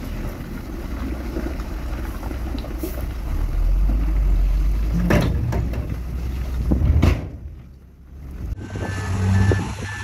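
Heavy diesel trucks and earthmoving machinery running with a low, steady rumble. The sound dips briefly, then a truck's reversing alarm beeps repeatedly near the end.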